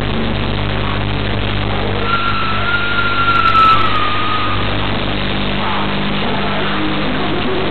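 A steady low hum with hiss throughout. A thin, slightly falling high tone is heard for about two and a half seconds near the middle.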